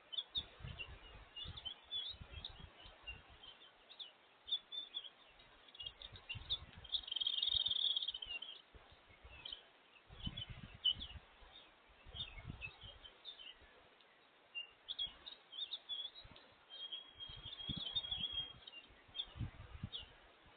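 Small wild birds chirping and twittering, many short chirps with a longer twittering run twice. Soft low thumps come in now and then.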